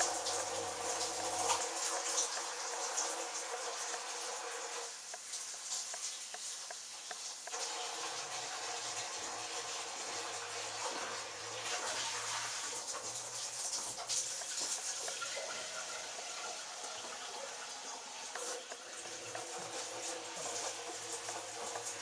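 LG Direct Drive front-loading washing machine turning a wet, sudsy load: steady water sloshing and splashing in the drum, with a low hum that comes and goes.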